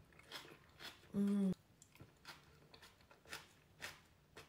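Close-miked chewing of a mouthful of raw onion and pickled herring: a string of soft crunchy clicks. About a second in, a short hummed 'mm' of the voice.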